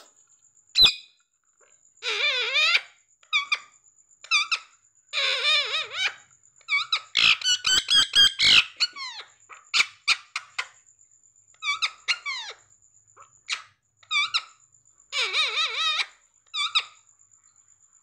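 Rose-ringed parakeets calling in repeated harsh bursts of squawks and chatter. A sharp knock sounds about a second in, and a quick run of clicks and knocks comes around the middle, as from the plastic bottle against the cage wire.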